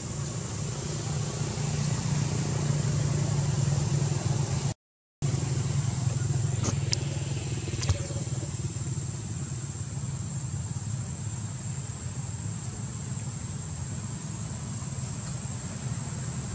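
Steady outdoor background: a low rumble like distant engine traffic, with a thin, steady high-pitched whine over it. The sound cuts out for about half a second around five seconds in, and a few faint clicks follow a couple of seconds later.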